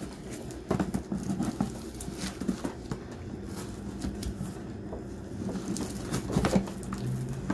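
Folding knife slitting the packing tape and cardboard along a shipping box's seam: irregular scratchy scrapes and small ticks as the blade is drawn along.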